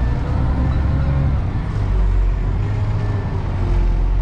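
Concrete mixer truck's diesel engine running steadily as the truck reverses, a constant low rumble heard from inside the cab.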